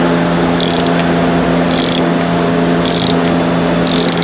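Socket ratchet clicking in four short runs, about one a second, as it turns a cap-style wrench on a Lexus IS250's cartridge oil filter housing. A steady low hum runs underneath.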